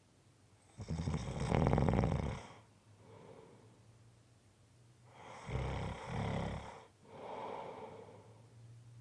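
A person snoring in their sleep: two loud snores about four and a half seconds apart, each followed by a softer breath.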